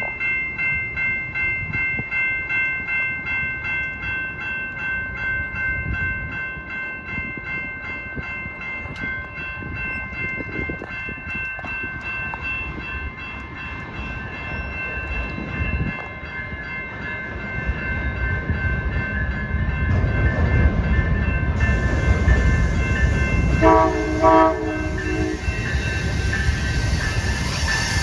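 A bell rings in steady, evenly spaced strikes while an approaching Amtrak Hiawatha train's rumble builds. Near the end the train sounds its horn in a few short blasts and rushes past.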